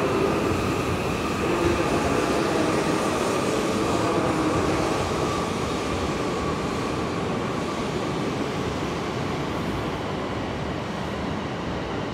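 E5 series Shinkansen train rolling slowly along the platform as it pulls in, a steady running hum with a few faint held tones that eases gradually as it slows.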